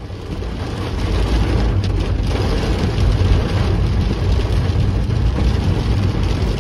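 Heavy rain pelting a car's roof and windows, heard from inside the cabin over the steady low rumble of the moving car.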